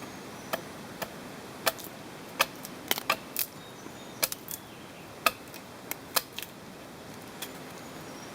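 Wood fire crackling: irregular sharp pops and snaps of burning wood, some much louder than others.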